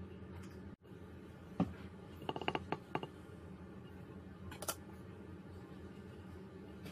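Metal spoon clinking against dishware: a single tap, then a quick run of ringing clinks about two seconds in, and one more tap later, over a steady low hum.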